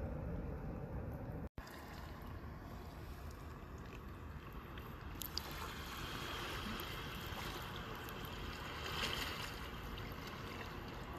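Steady outdoor rushing noise of wind on the microphone and shallow seawater washing over the reef flat at low tide, cut off for a moment about a second and a half in, with a single sharp click in the middle.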